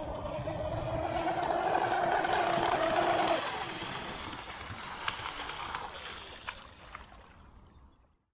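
Pro Boat Veles 29 V2 RC catamaran's brushless electric motor whining at speed, rising in pitch and loudness until about three seconds in, then falling away and fading out. A few sharp clicks come near the end.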